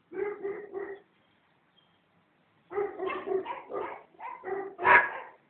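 A dog barking: three quick barks, a pause, then a run of about seven barks with the last one the loudest.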